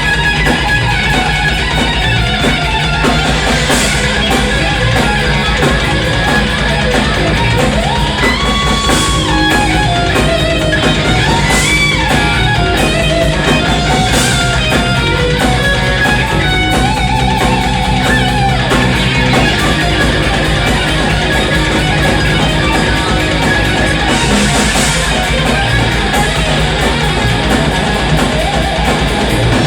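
Rock band playing an instrumental passage with no vocals: a distorted electric guitar plays a lead with bent, gliding notes over bass and drums, with occasional cymbal crashes.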